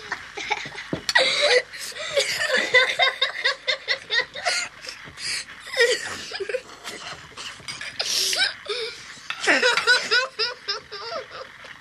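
Boys laughing in repeated short fits of giggles and chuckles, loudest about eight and ten seconds in.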